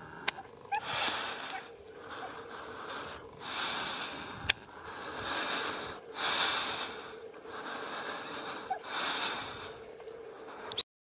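Heavy breathing close to the microphone, a breath about every second and a half, with two sharp clicks, one just after the start and one near the middle.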